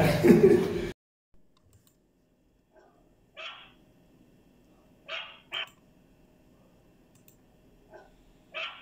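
Puppies yelping loudly for about a second, cut off suddenly. Then a single puppy gives five short, fainter yips at irregular intervals.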